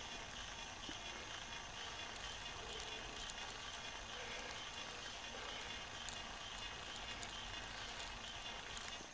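Bicycle riding along rough asphalt: a steady rushing noise of tyres on the road and wind, with a few faint ticks and rattles.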